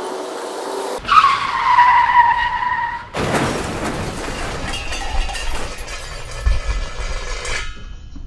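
Full-size passenger van cornering hard through a slalom: its tyres squeal in one steady, slightly falling tone for about two seconds. Then engine and road noise are heard from inside the van, dropping off suddenly near the end.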